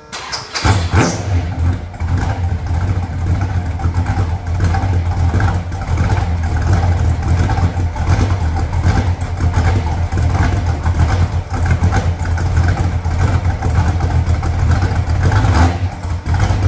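1969 Dodge Charger engine cold-starting: it catches within about the first second and then runs on loud and steady.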